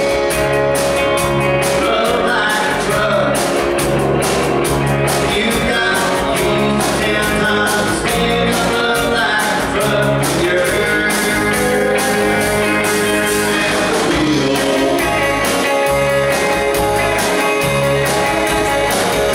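Live rock band playing: two electric guitars over a drum kit keeping a steady, driving beat with cymbals.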